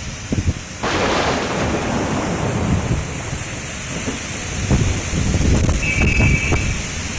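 Rain falling steadily in a thunderstorm, with a sudden crack of thunder about a second in that fades into a low rumble.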